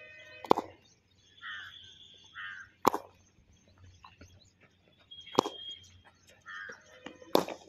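A cricket bat strikes a hand-fed ball four times, sharp single cracks about every two and a half seconds, with bird chirps in between.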